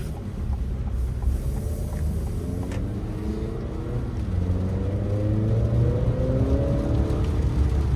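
2024 Acura TLX's turbocharged four-cylinder engine heard from inside the cabin under hard acceleration. The engine note climbs, drops at an upshift about four seconds in, then climbs again, over a steady low road rumble.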